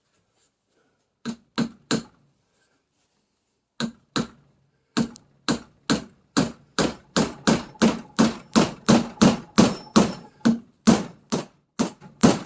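A hammer tapping a greased bushing into the eye of a Triumph Spitfire rear radius rod. Three light taps come about a second in and one near four seconds, then steady blows about three a second that grow louder.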